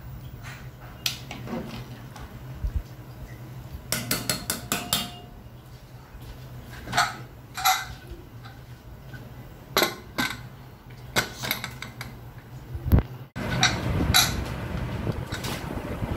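A spoon knocking and scraping against the aluminium pressure cooker as rice is stirred into the broth: a string of separate clinks and knocks, with the loudest knock about thirteen seconds in.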